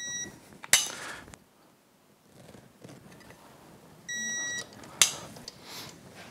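Digital click-type torque wrench beeping twice, each beep about half a second long, once at the start and again about four seconds in, signalling that a gearcase mounting bolt has reached its set torque. Each beep is followed within a second by a sharp metallic clink from the wrench and adapter.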